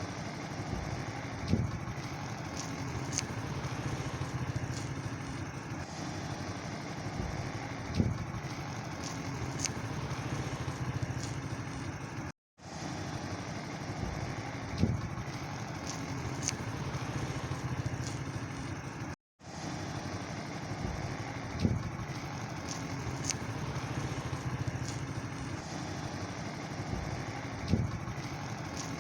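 An engine running steadily, with a sharp knock every six or seven seconds.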